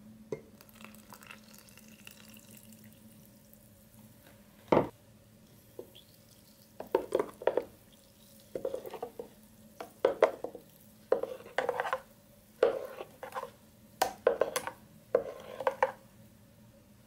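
A metal spoon stirring a runny ginger, garlic and lemon mixture in a blender bowl, in repeated short strokes of scraping and sloshing through the second half. A single sharp knock comes about five seconds in.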